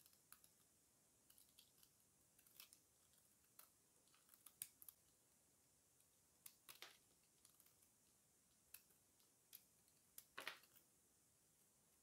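Snap-off utility knife blade shaving a bar of dry soap: faint, irregular scraping crackles, a stroke or two every second, the strongest about ten seconds in.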